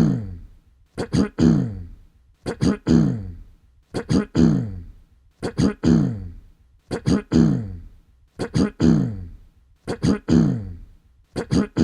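A person clearing their throat again and again, the same throat-clear looped about once every second and a half. Each time there are two short sharp catches, then a longer voiced 'ahem' that falls in pitch and fades.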